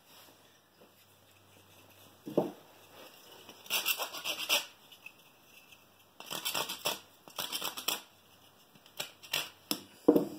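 Utility knife scraping splinters off a small wooden end-cut block, in several clusters of short, quick strokes. A dull wooden knock comes about two seconds in and another near the end.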